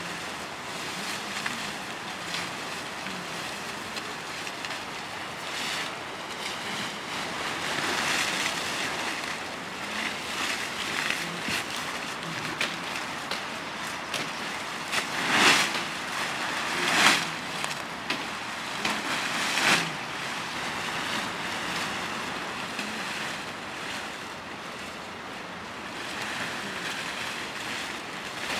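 Leafy cut branches rustling as they are handled, gathered and piled for fodder, with a few louder swishes about halfway through, over a steady rushing background noise.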